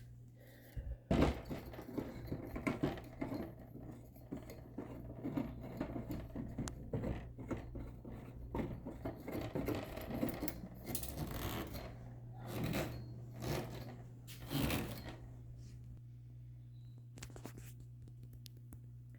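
Handling of a folding aluminium camping table: a busy run of clicks, scrapes and light metallic knocks that dies down near the end, over a steady low hum.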